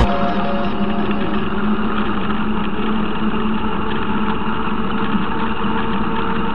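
A motor running steadily with a constant low hum under an even rushing noise of travel.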